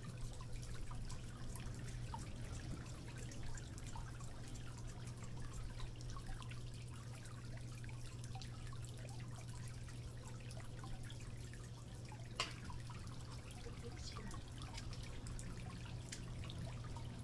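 Water dripping and trickling over a steady low hum, with one sharp click about twelve seconds in.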